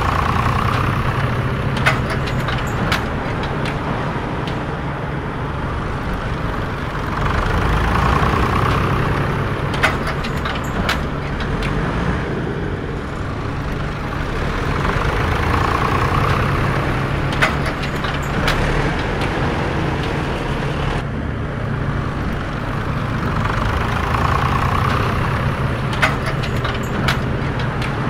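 Heavy truck engine sound, running steadily at idle with a low hum, swelling and easing about every eight seconds, with a pair of light clicks on each cycle: a looped sound effect.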